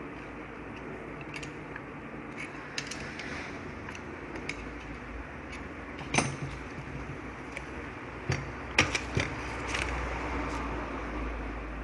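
Scattered clicks and knocks of hand tools and metal parts being handled during steering-column disassembly. The loudest knock comes about six seconds in and a quick cluster comes near nine seconds, over a low rumble that builds in the second half.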